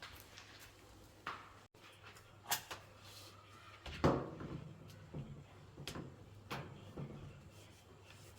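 A dozen or so scattered knocks and bumps from things being handled and shifted, the loudest about four seconds in.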